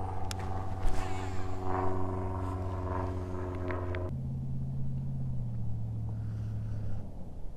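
A small motor running with a steady hum. About four seconds in it changes abruptly to a different, lower hum, steps lower again, then stops shortly before the end. A few light ticks come in the first half.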